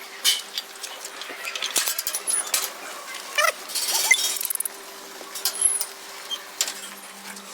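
Irregular clinks and knocks of hard objects, thickest in a short clattering run about halfway through, over a faint steady hum.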